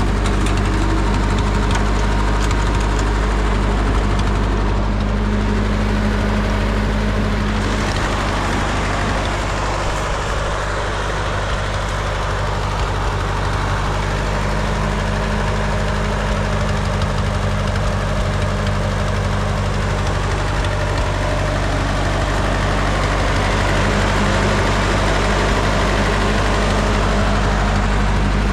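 An engine running at a steady speed, with an even low hum that does not rise or fall.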